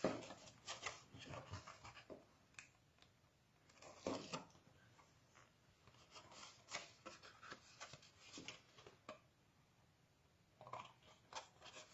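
Faint rustling and scraping of a chipboard box being handled, turned and pressed together along its taped sides, in short bursts with quiet gaps between.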